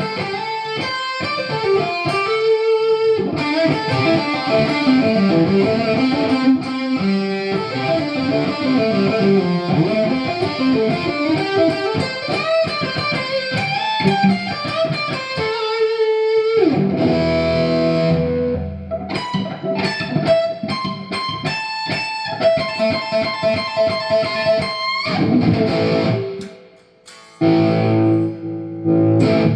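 Gibson Les Paul Standard Premium electric guitar with Burstbucker pickups, played through an amp: single-note lead lines with string bends, then fuller chords in the second half, with a short break near the end.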